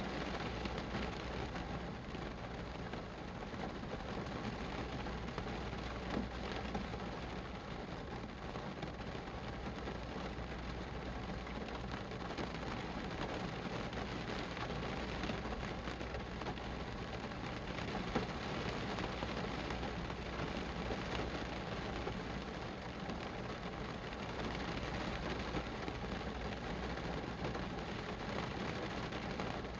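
Steady rain falling, a continuous even hiss with many small drop ticks, over a steady low rumble.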